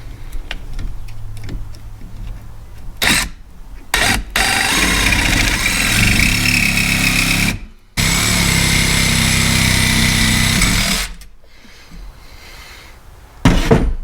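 Jigsaw with a Diablo blade cutting out a quarter-inch steel angle bracket between drilled holes, after a couple of short blips: two runs of about three seconds each with a brief stop between.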